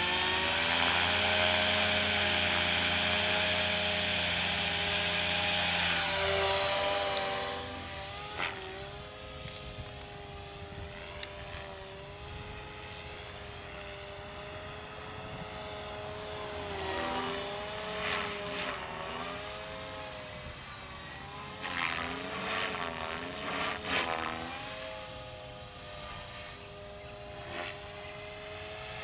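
Align T-Rex 500 electric RC helicopter running: its motor and rotor whine rise in pitch at the start and hold loud and steady for several seconds. About seven seconds in it drops sharply in level, and the quieter whine then wavers up and down in pitch as it flies.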